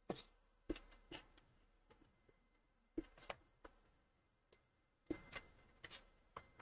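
Faint, irregular clicks and light knocks from a computer mouse and desk being handled, coming in small clusters of two or three.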